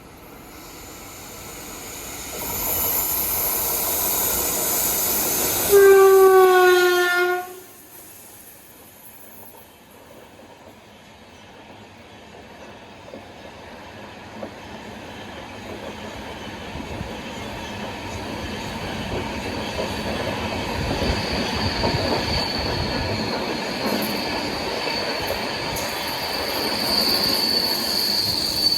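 A train approaching: its rumble builds, then one loud locomotive horn blast lasting under two seconds. After the horn the rumble of the wheels on the rails grows steadily louder, with a high-pitched wheel squeal coming in near the end.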